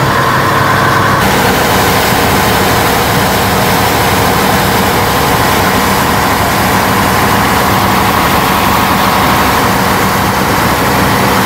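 Motorboat engine running steadily under way, with a constant rushing noise that comes up about a second in.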